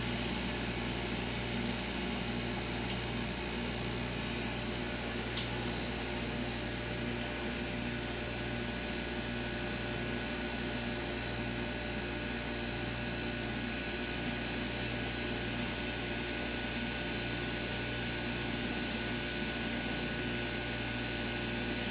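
Steady machine hum made of several held tones over a low whir, unchanging throughout, with one faint tick about five seconds in.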